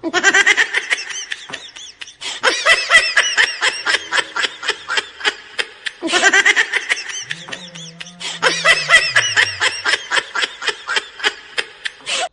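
Laughter sound effect: a fast, high-pitched run of giggles that starts abruptly and restarts about six seconds in, with a low falling tone under it shortly after.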